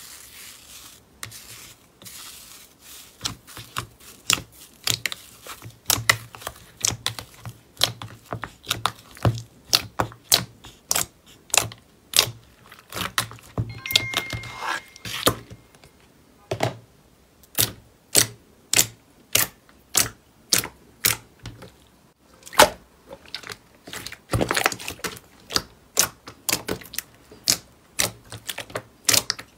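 Thick green slime being pressed and kneaded by fingers, giving a long run of sharp clicking pops, a few each second and unevenly spaced, as pockets of air burst in it. It opens with a soft crackly hiss as the fingers sink into foamy slime.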